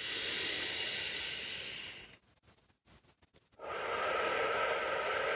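A person breathing deeply close to the microphone: one breath of about two seconds that fades out, a short silent break, then a longer breath that begins about three and a half seconds in.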